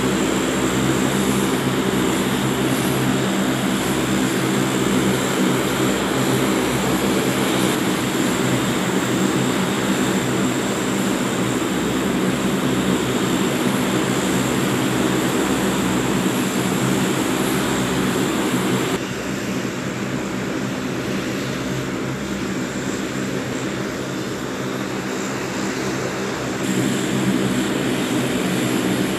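Four-engine C-130-type turboprop aircraft running on the ramp with all four propellers turning: a steady engine drone with a high turbine whine. The sound drops a little in level about two-thirds of the way through and comes back up near the end.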